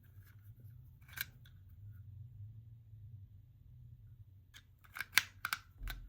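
Sharp clicks of small hard plastic being handled: one click about a second in, then a quick run of clicks near the end.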